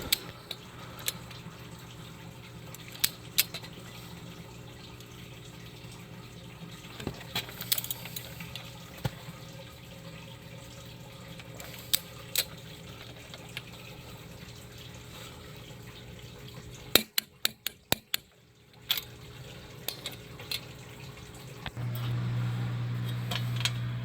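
Hand tools working on car suspension parts: sparse sharp clicks and light metal clinks over a steady low hum, with a quick run of clicks about seventeen seconds in.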